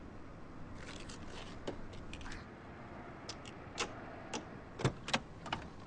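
A scatter of irregular clicks and light knocks, about a dozen, the strongest in the second half, over faint background noise.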